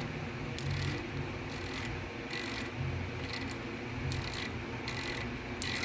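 Freshly greased five-pawl bicycle freehub (driver) freewheeling: a very faint, muted ratchet clicking and rubbing of the pawls over the ratchet ring, in short swishes about twice a second. The grease in the driver damps the pawl clicks that are loud when the hub is dry.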